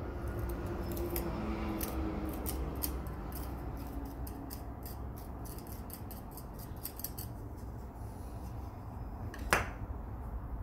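Quick, irregular small clicks and taps of a metal hand tool against mosaic tiles as pieces are set into the mortar, with one sharper, louder click near the end.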